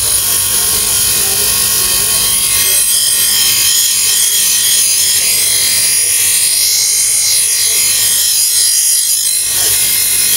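Bench buffer's spinning buffing wheel with a kukri machete blade pressed against it: a loud, steady, high friction hiss over the motor's whine as the edge is buffed during sharpening.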